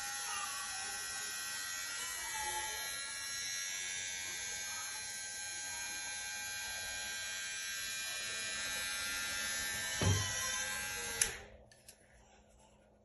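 GLAKER cordless hair clipper running with a steady buzz, with a dull knock about ten seconds in; near the end it is switched off with a click and the buzz stops suddenly.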